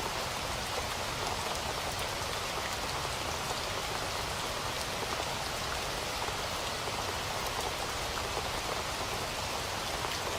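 Steady rain falling and pattering on surfaces, a constant hiss of many drops.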